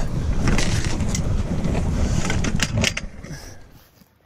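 Low rumbling handling noise with knocks and rustles from a chest-mounted camera being jostled on a rain jacket. It falls away sharply about three seconds in.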